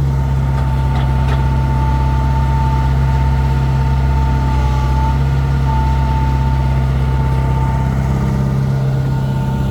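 Heavy diesel engine running steadily at a constant speed, with a thin steady whine over the engine note that fades out near the end.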